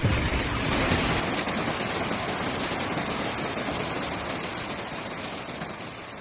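Steady rushing noise of water, with a low rumble that drops away about a second in; the sound fades out near the end.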